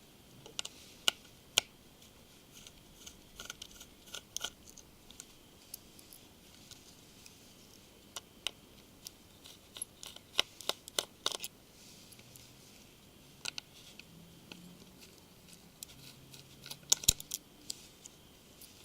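Small Phillips screwdriver working out the tiny screws of a phone's plastic rear housing: irregular light clicks and ticks in small clusters, the sharpest near the end.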